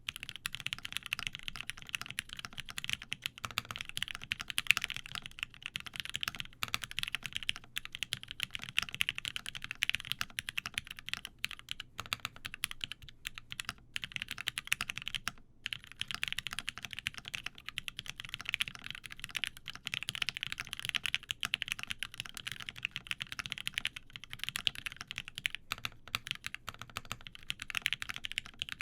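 Continuous fast typing on a mechanical keyboard with lubed Gateron Ink linear switches, a UHMWPE plate and GMK keycaps, with a few brief pauses between bursts of keystrokes.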